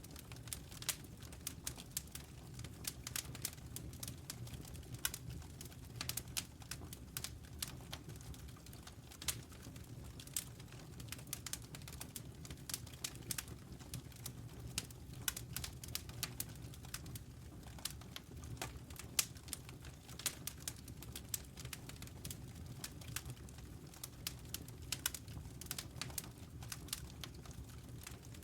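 Campfire burning, with frequent irregular crackles and sharp pops over a low steady rumble.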